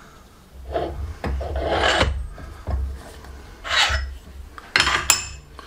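Steel press tooling being handled: the pressing pin and plates slid and lifted off a crankshaft web on a hydraulic press bed, in a few separate metal-on-metal scrapes with a sharp clink or two near the end.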